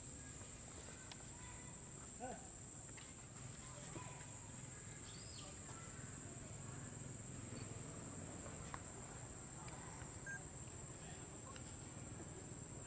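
Steady, high-pitched insect drone holding one unbroken tone, over faint outdoor ambience with a couple of brief, faint calls.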